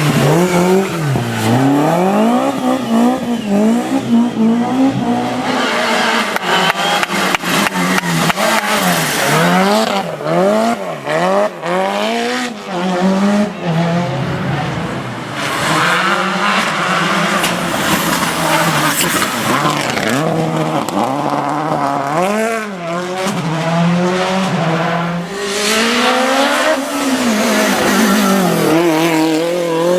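Rally cars at full attack: engines revving hard and falling back again and again through gear changes and lifts, with many sharp crackles in the first half and tyre noise.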